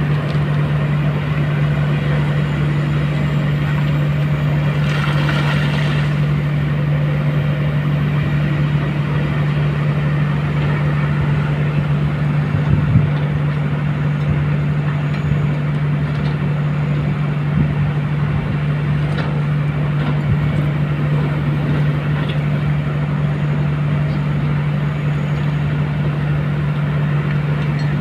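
Kobelco crawler excavators' diesel engines running steadily with a constant low hum, with a few clunks of rock under the digging bucket and a brief higher-pitched sound about five seconds in.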